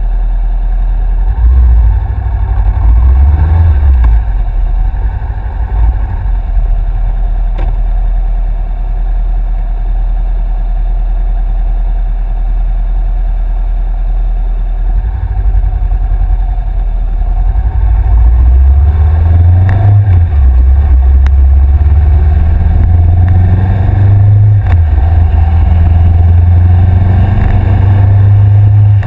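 2013 Honda CBR500R's parallel-twin engine through a Two Brothers aftermarket exhaust, idling with a couple of short revs two to four seconds in. About halfway through the engine speed rises as the bike pulls away, with breaks in the rising pitch at gear changes.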